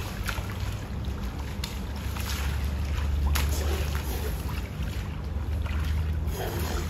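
Wind buffeting the microphone in a steady low rumble, over bare feet splashing and wading through shallow floodwater, with a few sharper splashes.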